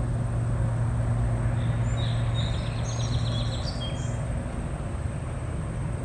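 Steady low drone of a distant engine, dropping off about three and a half seconds in. A small bird gives a quick rapid trill in the middle.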